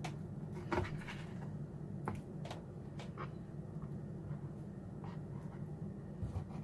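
Knife cutting raw chicken thighs on a plastic cutting board: scattered light taps and clicks of the blade against the board, over a steady low hum.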